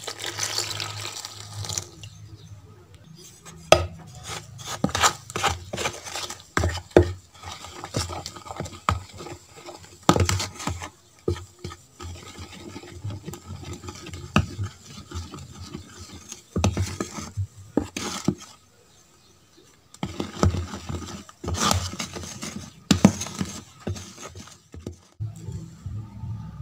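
Metal spoon stirring and scraping flour and water into a thick idli batter in a plastic container, with irregular clinks and scrapes against the sides and a short pause about two-thirds of the way through.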